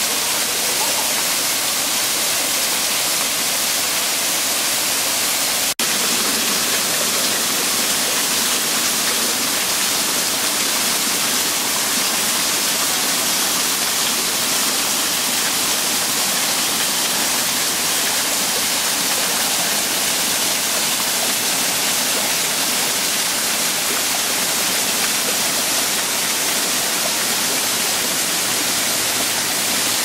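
Small waterfall cascading over rock ledges into a stream: a steady rushing hiss of falling and splashing water. The sound cuts out for an instant about six seconds in.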